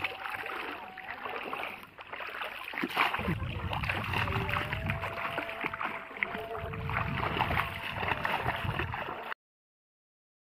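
Shallow water splashing and sloshing as legs wade through a flooded rice paddy and a bamboo polo fish trap is pushed down into the water and mud. The sound cuts off abruptly to silence near the end.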